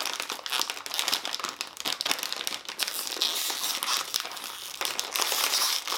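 Plastic snack chip bag crinkling and crackling steadily as it is pulled and worked open by hand.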